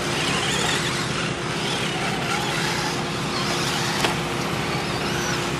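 Electric motors of 1/10-scale short course RC trucks whining as they race, the pitch rising and falling with throttle. There is a single sharp tap about four seconds in.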